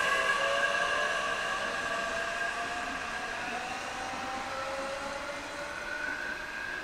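Electric commuter train pulling away from a station platform and accelerating: its traction motors give a whine in several tones that slowly rise in pitch, fading as the train moves off.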